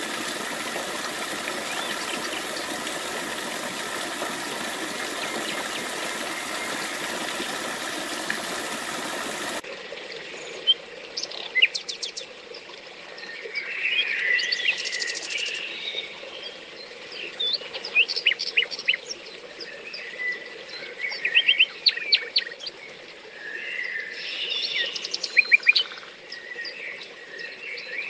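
Thin waterfall falling from a rock overhang and splashing into a shallow pool: a steady rushing hiss. About ten seconds in it gives way to songbirds chirping and calling in woodland, with short calls every second or two over a faint background of running water.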